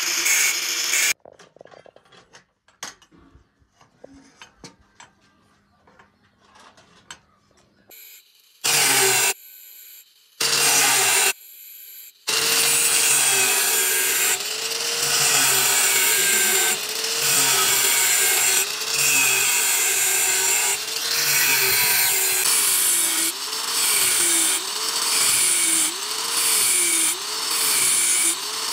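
Angle grinder with a thin cutting disc grinding across the teeth of a steel hand file held in a vise. It runs briefly at the start, drops away for several seconds of faint clicks, comes back in two short bursts, then grinds continuously in regular strokes about once a second, its motor pitch dipping and recovering as the disc bites.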